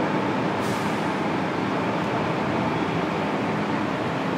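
Steady mechanical hum and rumble of a city street, with engines running nearby.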